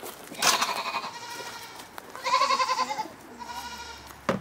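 Livestock bleating: two long, wavering calls about two seconds apart, then a fainter one. A sharp click comes near the end.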